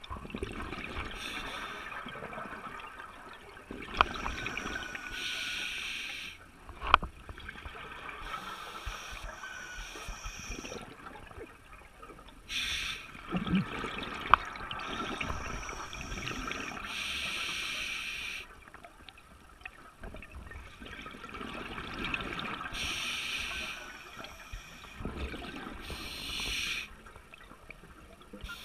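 Scuba regulator breathing underwater: hissing breaths and bursts of bubbling exhaust every few seconds, with a few sharp clicks.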